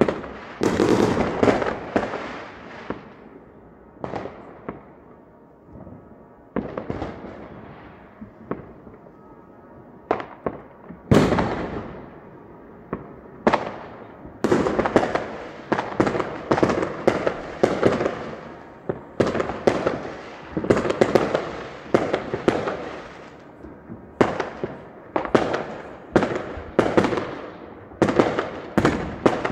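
New Year's fireworks going off all around: many sharp bangs and crackles, each with a trailing echo. They thin out for several seconds after the first bangs, then come thick again from about eleven seconds in, at about two a second.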